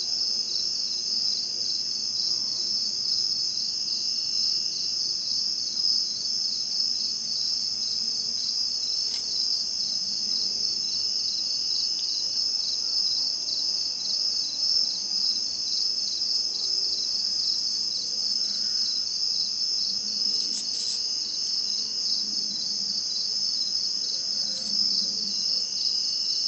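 A steady, high-pitched chorus of crickets trilling without pause, with a second, lower trill fading in and out now and then.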